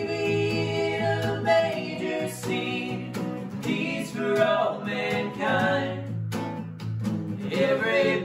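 A Christmas song with strummed acoustic guitar and a sung vocal line.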